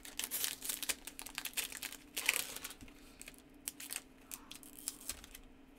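Foil wrapper of a Yu-Gi-Oh! booster pack crinkling and crackling as fingers work open its crimped seal, in quick dense crackles with a louder rustle a little over two seconds in, then thinning out.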